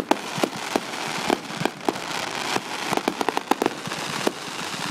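Fireworks going off: a quick, irregular run of sharp pops and bangs over a steady crackling hiss.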